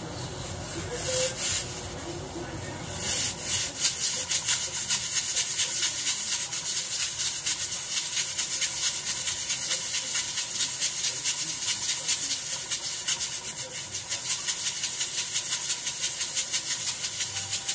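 Rhythmic scraping or rubbing strokes, about three a second, harsh and hissy, starting about a second in and growing louder after about three seconds.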